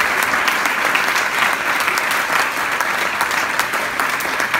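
Audience applauding: many people clapping steadily and loudly in a lecture hall.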